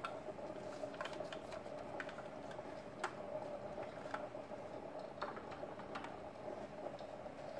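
Crackling log fire: irregular soft pops and clicks over a steady hiss.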